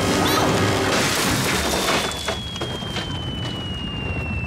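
Cartoon sound effects of a wooden rope bridge collapsing into a chasm: a loud rumbling crash with knocks, fading after about two seconds, then one long, slowly falling whistle. Background music may sit underneath.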